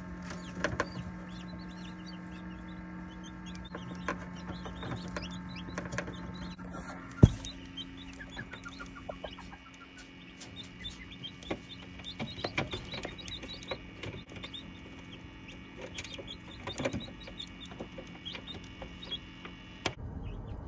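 Newly hatched ducklings peeping repeatedly in short, high chirps over a steady low hum. One sharp knock about seven seconds in.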